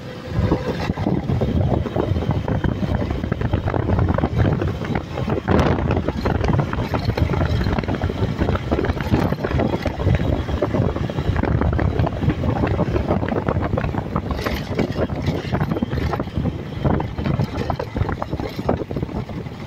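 Honda CG 150 Fan motorcycle under way at steady road speed: its single-cylinder engine runs beneath a heavy rush of wind on the microphone.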